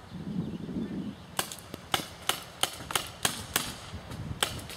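Paintball markers firing a string of about ten sharp pops, roughly three a second, starting about a second and a half in.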